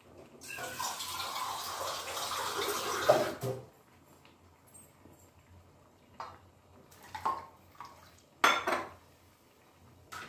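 Water pouring for about three seconds, then a few separate clinks and knocks of kitchen vessels, one louder than the rest about eight and a half seconds in.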